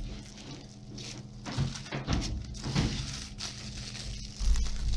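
Handling noise: rustling and light clicks and knocks as a plastic breadboard and its packaging are handled, with a heavier low bump near the end.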